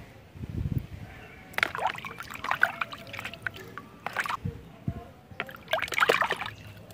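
A plastic toy dinosaur being dunked and swished about in a bucket of water, with irregular splashing and sloshing, preceded by a few low thumps as it is handled.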